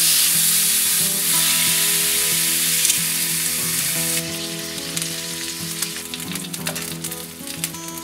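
Blocks of raw pork belly sizzling in a hot black frying pan as they are laid in to sear, their fat rendering out. The sizzle starts suddenly and is loudest at first, then eases after about four seconds into a softer sizzle with scattered crackling spits.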